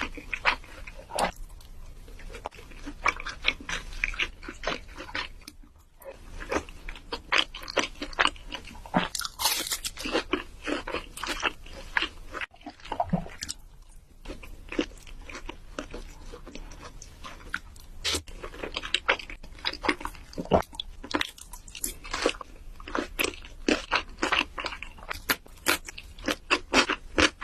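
Close-miked crunchy food being bitten and chewed, a dense run of sharp crunches with brief lulls about 6 and 12 seconds in.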